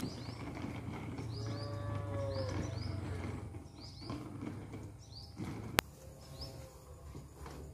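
A cow mooing: one long call about a second in that rises and falls in pitch, and a fainter call past the middle. Small birds chirp in short falling notes about once a second, and one sharp click sounds about three-quarters of the way through.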